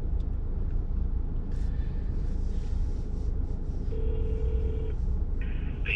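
Steady low rumble inside a car cabin, with one brief steady tone from a phone on speaker about four seconds in, lasting about a second.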